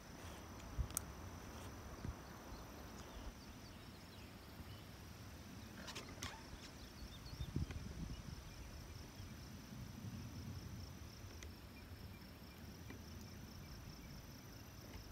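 Faint, steady high-pitched trilling of an insect such as a cricket, with a short break near the middle. Under it, wind through ripe wheat gives a low uneven rustle that swells a little after the middle. There are a couple of brief sharp clicks near the start and about six seconds in.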